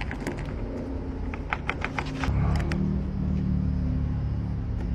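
A run of small metallic clicks, then about two seconds in a motor switches on and runs with a steady low hum.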